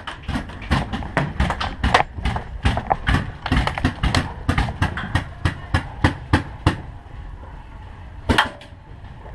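Paintball markers firing: a rapid, irregular string of sharp pops, several a second, thinning out about seven seconds in, with one louder cluster of shots near the end.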